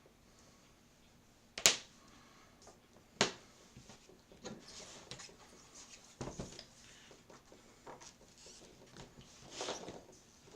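Craft tools and paper handled on a tabletop: two sharp taps about a second and a half apart, a duller knock midway, and soft paper rustling between them.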